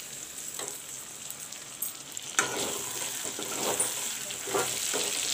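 Chicken, onions and freshly added chopped tomato sizzling in hot oil in a metal kadai, stirred with a flat spatula that scrapes the pan. There is a steady sizzle, with a sharper scrape about two seconds in and several more stirring strokes near the end.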